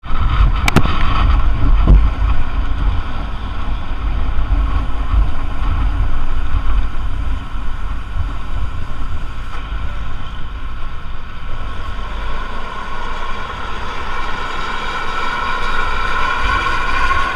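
Intercity bus HR 016 "Estrella Del Norte" running on the highway: a heavy low engine rumble with wind on the microphone, and a high whine that grows louder over the last few seconds. A couple of sharp clicks sound in the first second.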